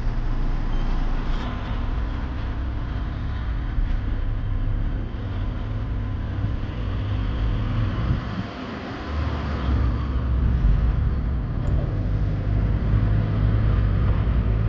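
Road and engine noise inside a moving car: a steady low rumble with tyre and wind hiss, easing briefly about eight seconds in.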